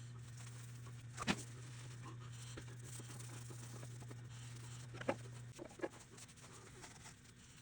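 Faint low steady hum that stops about five and a half seconds in, with a few soft clicks or taps, one about a second in and two more around five to six seconds.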